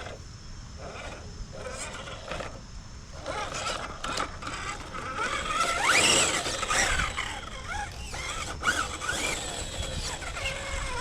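Whine of an RC crawler's brushed 550 electric motor and drivetrain, rising and falling in pitch as the throttle is worked, loudest in a rising sweep about six seconds in, with a few short clicks.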